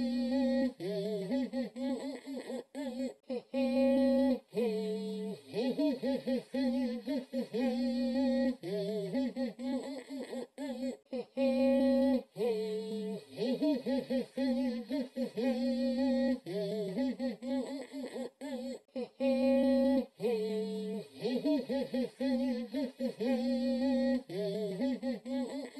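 Background music: a song carried by a hummed vocal melody, with short breaks between phrases.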